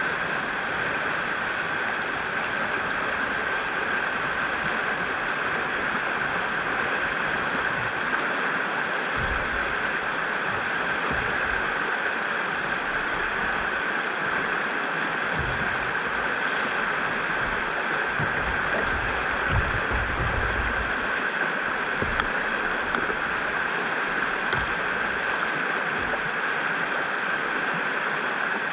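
Steady rush of a swollen river pouring through rapids, with a few irregular low bumps in the middle.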